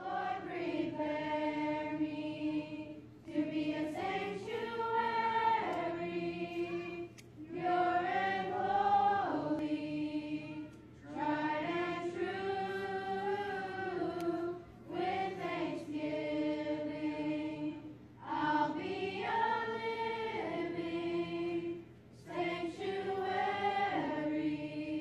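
A choir singing in long held phrases of about three to four seconds each, with short breaks between them.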